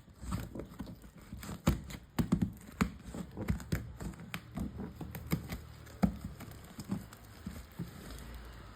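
Packaging being handled by hand as a product is unboxed: irregular crinkling, light tapping and small knocks of cardboard and plastic, with a few sharper knocks about two and six seconds in.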